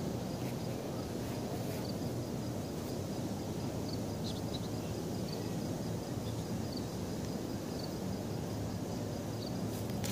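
Steady low rumble of distant city traffic, with a faint high insect chirp repeating about once a second.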